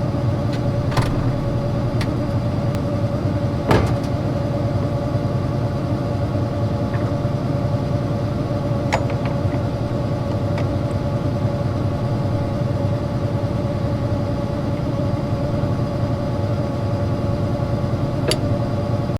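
Combine's diesel engine idling steadily, with a few sharp metallic clicks and knocks over it, the loudest about four seconds in.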